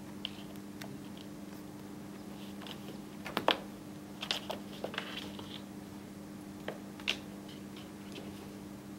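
Ragdoll kitten playing with a fluffy ball on a hardwood floor: irregular light taps and knocks of paws and ball, the loudest about three and a half seconds in and a quick flurry a second later. A steady low hum runs underneath.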